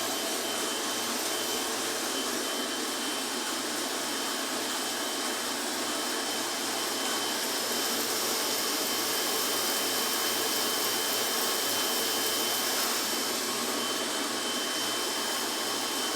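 Straw-forming and cutting machine running steadily: an even, unbroken rushing machine noise with a thin steady high whine through it.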